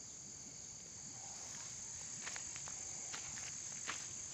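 A steady high-pitched insect chorus, with a few light ticks in the second half.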